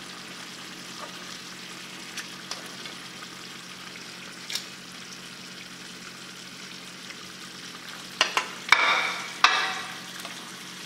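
Metal kitchen tongs ticking lightly against a plate while serving sauced spaghetti, then about four sharp metallic clacks near the end as the tongs go back into the frying pan. Under it runs a steady low sizzle from the tomato and mackerel sauce in the pan.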